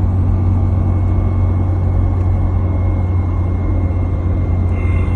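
Lada Niva heard from inside the cabin while it runs: a steady low drone from the drivetrain and road, with a thin steady whine above it that grows louder near the end.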